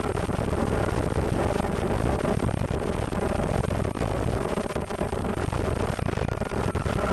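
Ultrasonic fabric-slitting machine running: a steady mechanical noise with a faint, constant high-pitched tone and light clicking.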